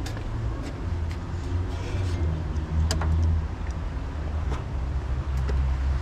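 A motor vehicle's engine running close by: a low steady rumble, with a few light clicks over it.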